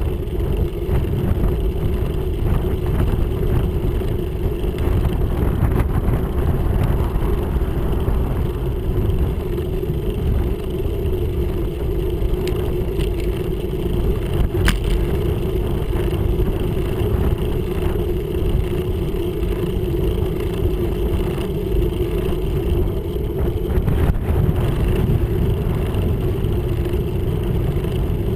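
Wind rushing over the microphone of a handlebar-mounted camera on a moving road bike, with a steady hum of tyres on tarmac. A few faint clicks sound about halfway through.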